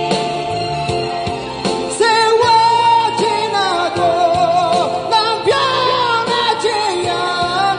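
A man singing live into a microphone over a recorded backing track, both played through a small busking amplifier. The voice comes in about two seconds in, louder than the backing, with vibrato on the held high notes.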